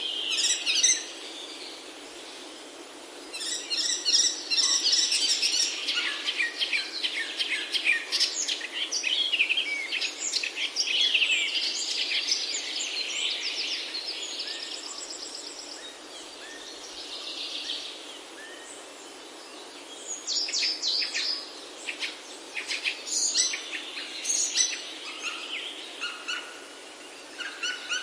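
Songbirds singing and chirping in bouts of quick, high trills over a steady background hiss, with short lulls between bouts.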